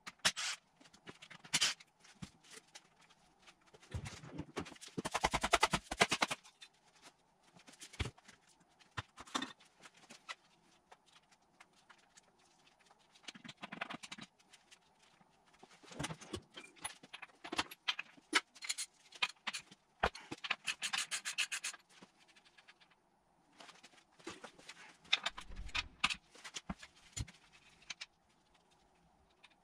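Hand tools working on a Nissan RB25 R30A gearbox casing during teardown: scattered metal clinks, knocks and scrapes. There are two spells of rapid, evenly spaced clicking, about five and about twenty-one seconds in.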